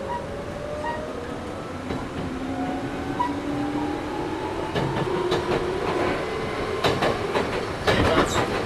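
Toyohashi Railway 1800 series (ex-Tokyu 7200 series) resistance-controlled motor car running, heard from inside the car: the traction motor and gear whine rises steadily in pitch as the train gathers speed. From about halfway in, the wheels clack sharply over rail joints, loudest near the end.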